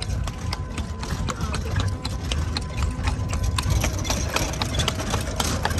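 A carriage horse's hooves clip-clopping on an asphalt road as it pulls the carriage, a quick run of sharp clicks over a steady low rumble.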